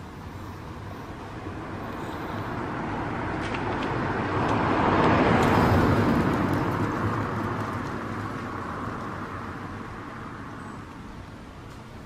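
A road vehicle passing by: a broad rushing noise that swells to its loudest about halfway through, then fades away.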